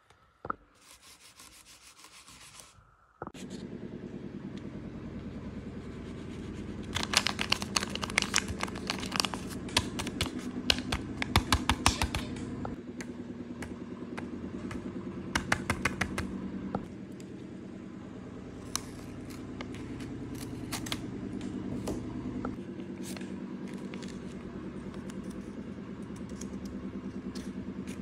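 Paper crinkling, rustling and tapping in clusters as a handmade paper blind bag and its paper tabs are handled, unfolded and pulled out. Underneath, a steady low hum starts a few seconds in.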